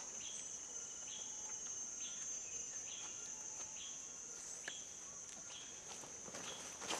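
Steady high-pitched insect trilling, with a short chirp repeating about once a second. A few scuffs of feet on the ground come near the end.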